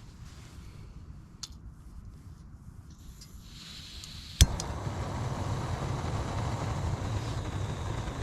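Soto Windmaster gas canister stove being lit: gas hisses on, the piezo igniter clicks sharply about four seconds in, and the burner catches and runs steadily.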